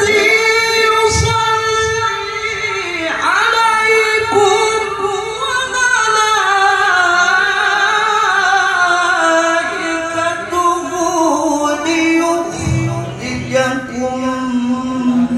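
A qari's high male voice chanting Quran recitation into a handheld microphone in the ornate melodic style. He holds long notes, sweeps up quickly about three seconds in, runs slowly downward through ornamented turns, and settles on a lower held note near the end.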